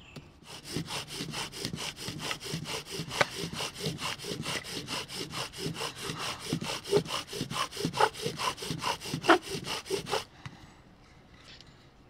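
Bow drill: a wooden spindle, spun by a paracord-strung bow, grinding in a wooden hearth board to make a friction fire. Quick, even back-and-forth strokes, about four to five a second, stop suddenly about ten seconds in.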